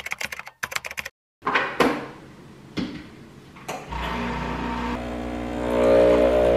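A few quick clicks and separate knocks, then from about four seconds in a bathroom tap is turned on and runs steadily with a humming tone, getting louder around six seconds in, as water for washing off makeup.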